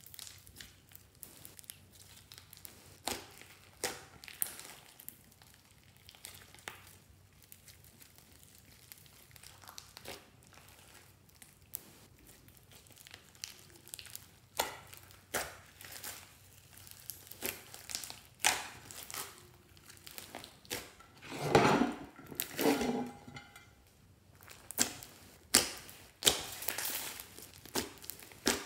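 Hands squeezing and kneading a large lump of glossy slime mixed with small foam beads: irregular wet squelches, small pops and crackles, with a louder, longer squelch a little past the middle.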